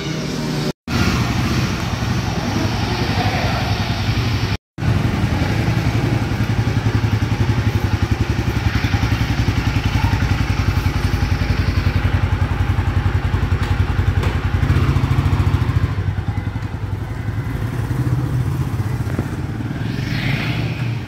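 Royal Enfield Himalayan 450's single-cylinder engine running, a steady rapid pulse of exhaust beats. It grows somewhat quieter over the last few seconds.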